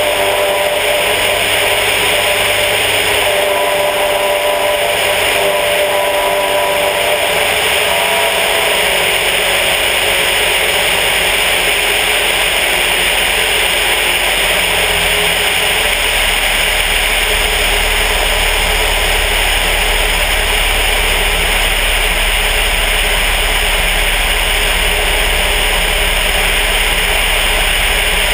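The VW-based engine and propeller of a Sonex light aircraft running steadily in flight, under a strong rush of wind over the outside-mounted camera. The engine's tone changes partway through, and a deeper rumble comes up in the second half.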